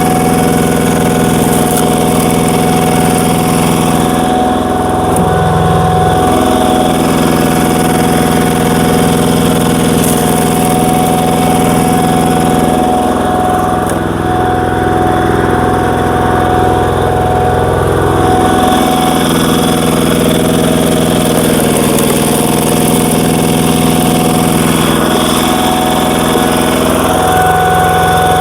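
Single-cylinder diesel engine of a walking power tiller running at high throttle, driving a screw-cone log splitter. The engine's pitch sags several times as it labours while the screw bores into tough, knotty logs, then recovers.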